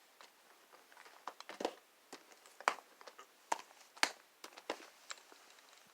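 Plastic DVD cases and their box being handled: a string of irregular light clicks and knocks, with some crinkling.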